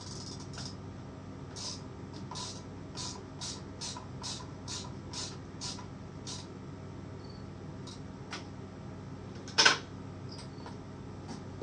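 Hand ratchet clicking in a run of short strokes, about two a second, as bolts on a chainsaw engine are snugged up. One sharp, much louder clack follows near the end.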